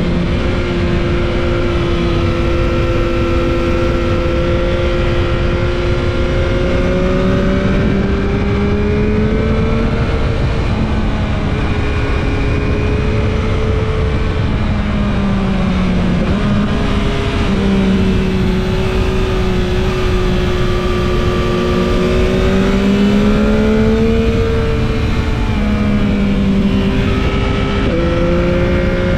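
2021 Yamaha MT-09 SP's 889 cc inline three-cylinder engine running under way on the road, its pitch rising and falling gently with the throttle, then stepping up suddenly a little before the end.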